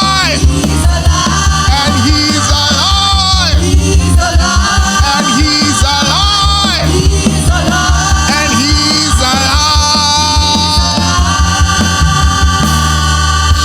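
Gospel worship band playing an upbeat song, with a steady bass and drum beat under a gliding melody line.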